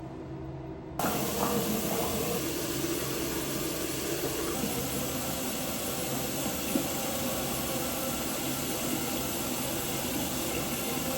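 Shower water running steadily, an even hiss that comes on suddenly about a second in.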